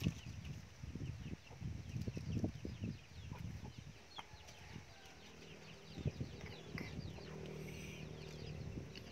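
Chickens calling around a yard: a steady stream of short, high, falling peeps, several a second, over low knocks and rumbles in the first few seconds. A steady low hum joins about five seconds in.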